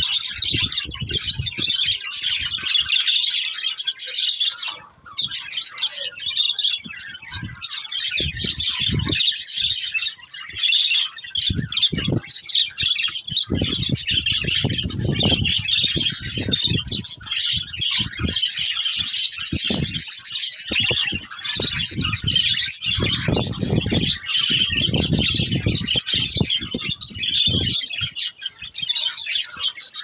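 A flock of budgerigars chattering, a dense, unbroken mix of chirps, warbles and squawks from many birds at once. An intermittent low rumble comes and goes underneath.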